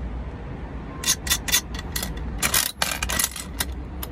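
Toy gumball machine dispensing: a quick run of sharp clicks about a second in, then a denser rattle near the middle and a few more clicks, as a gumball is released and rolls down into the dispensing door.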